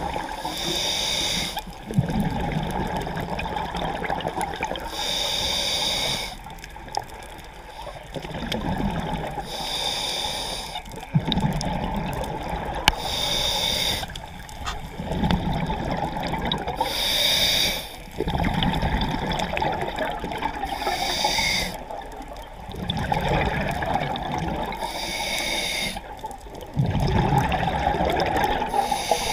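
Scuba diver breathing through a regulator underwater: a short hiss on each inhale, then a longer bubbling rush on each exhale, about one breath every three to four seconds.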